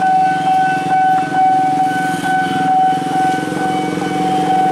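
Railway level crossing warning alarm sounding continuously in one steady high-pitched tone, the signal that a train is approaching and the barrier is down. Underneath it, a crowd of motorcycle engines idling.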